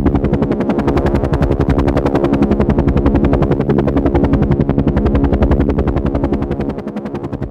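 Helicopter rotor beating in a rapid, even chop over a steady engine hum. It dips slightly in loudness near the end.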